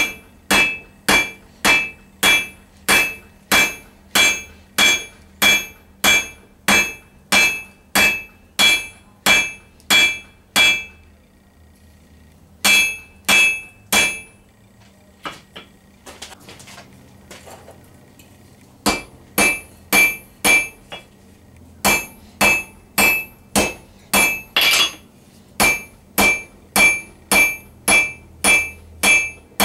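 Hand hammer striking hot steel bar on an anvil, about two blows a second, each with a short bright anvil ring. The hammering stops twice: once for about a second and a half near the eleven-second mark, and once for about four seconds in the middle with only faint shuffling. It then resumes steadily.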